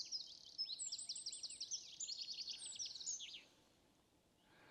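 Eurasian wren singing: one long song of rapid, high trills and chattering notes that stops about three and a half seconds in.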